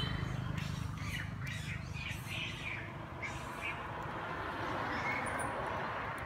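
A quick run of short, high-pitched squeaks and chirps from an animal, most of them between about one and four seconds in, over a steady outdoor hiss.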